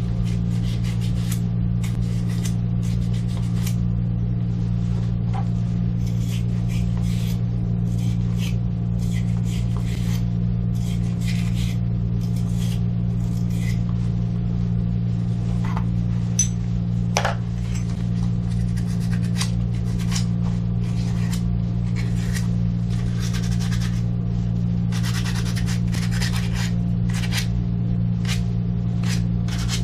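A steady low machine hum with scattered clicks, taps and scrapes of handling, one sharper knock about two-thirds of the way through.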